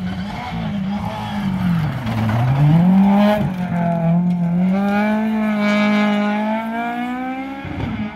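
Rally car engine at high revs as the car comes through a gravel bend: the revs drop and climb back about two seconds in, then are held high.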